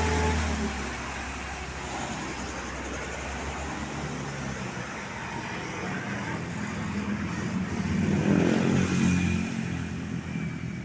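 Roadside traffic running past, a steady rush of engines and tyres, with a heavy vehicle's engine passing close and loudest about eight seconds in.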